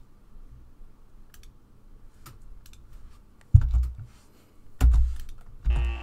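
Scattered clicks from a computer mouse and keyboard, then three dull low thumps about three and a half, five and five and a half seconds in, the first the loudest.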